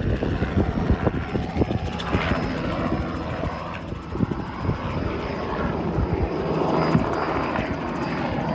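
A small two-bladed tour helicopter flying overhead. Its rotor chop and engine make a steady, loud noise.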